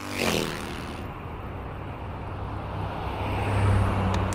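Street traffic noise: a steady rumble of road vehicles with a low engine hum, opening with a falling whoosh like a car going past.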